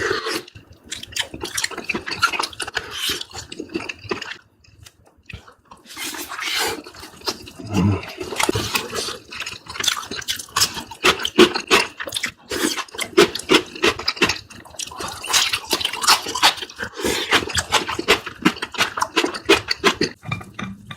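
Close-miked eating: wet chewing, lip-smacking and mouth clicks in a rapid run, with a short pause about four and a half seconds in.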